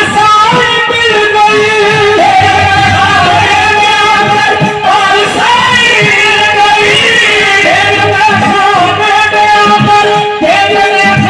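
Qawwali music: harmonium playing long held melody notes over steady hand-drum strokes, with singing.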